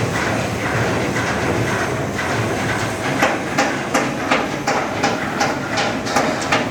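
Hammer blows on metal in a repair workshop, struck in a steady rhythm of about three a second from about two seconds in, over a continuous workshop din.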